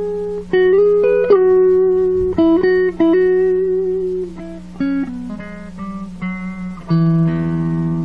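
Electric guitar, a Mexican-made Fender Stratocaster with 57/62 pickups, played clean through an engaged EP Booster-style clean boost pedal into a Peavey Classic 30 tube amp. It plays a single-note lead phrase, then about seven seconds in a chord that is left ringing.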